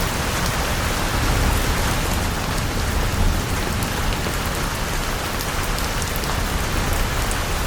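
Designed storm sound effect: heavy rain hissing steadily, with scattered drop ticks on top and a continuous low rumble underneath, the fading roll of thunder.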